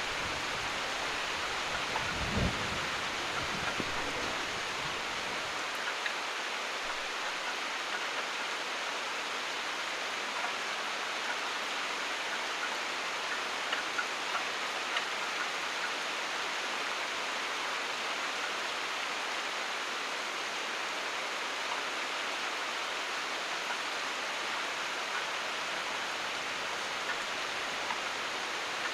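Steady rain falling, with a short low rumble of thunder about two seconds in and a few scattered drops ticking.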